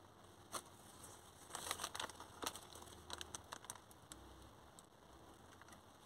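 Faint handling noise: light crinkling and small clicks in short clusters as the pistol and its plastic packaging are moved about in the hands.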